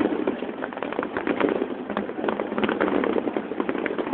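Fireworks in the final stretch of a display: a dense, unbroken run of rapid crackling pops and bangs from bursting shells and crackle effects, many reports a second.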